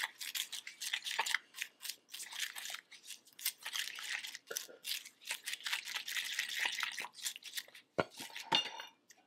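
A utensil stirring a wet, gritty marinade in a small metal bowl: quick, irregular scraping and clicking against the bowl, with a couple of louder knocks about eight seconds in.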